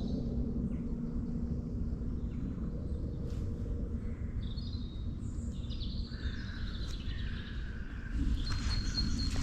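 Woodland birds singing in short, high phrases over a steady low rumble of outdoor ambience. Near the end, footsteps on the path start up under the birdsong.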